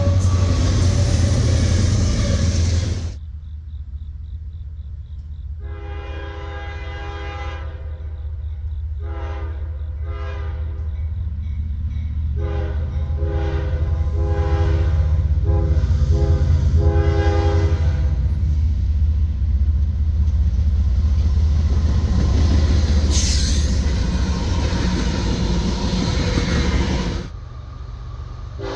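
A CSX diesel freight locomotive sounds its multi-note air horn in a series of long and short blasts as it approaches a grade crossing, the usual crossing warning. Under the horn the low engine and wheel rumble grows louder. Near the start another locomotive passes close by with a loud rumble that cuts off abruptly.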